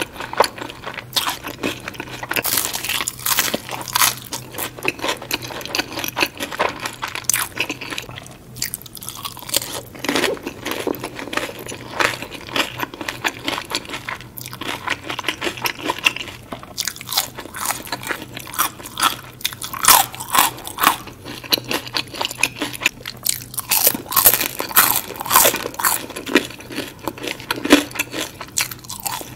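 Close-miked biting and chewing of crispy battered fried fish and fries, with crackling crunches that come in clusters every few seconds.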